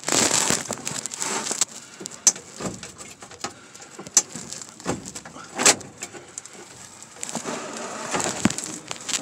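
Hands rubbing, scraping and knocking on an old truck's painted sheet-metal dashboard and glove box door as the door is worked open, an irregular run of scrapes with a few sharper clicks and knocks.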